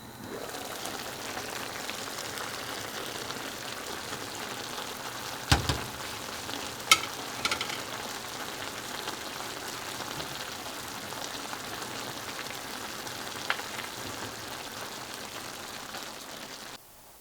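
Food sizzling steadily in a hot pan, with a few sharp knocks of a utensil against the pan, the loudest about five and a half and seven seconds in. The sizzling cuts off suddenly near the end.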